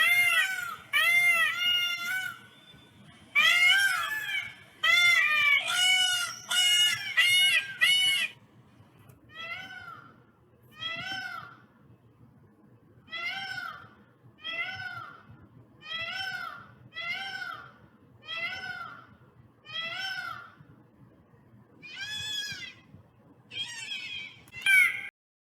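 Peacock calling over and over: short, arching, high-pitched calls, a loud rapid series first, then a run of fainter calls about one a second, and louder calls again near the end before the sound cuts off suddenly.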